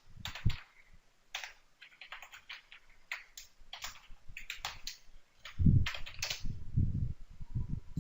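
Typing on a computer keyboard: irregular keystroke clicks, with a run of heavier, dull thuds in the last couple of seconds.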